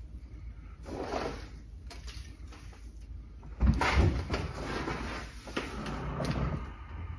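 Hands scooping gritty bonsai soil mix from a plastic tub and dropping it into a bonsai pot: a few bouts of scraping and grainy rustling, with a dull thump about three and a half seconds in, the loudest moment.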